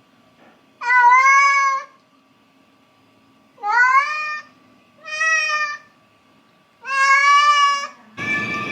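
Domestic cat meowing four times, each meow under a second long and some rising in pitch. A steady noise starts just before the end.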